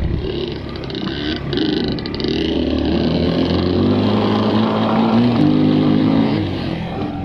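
Honda XR200R's air-cooled four-stroke single-cylinder engine running as the bike is ridden, its pitch climbing in steps over a few seconds and falling back near the end.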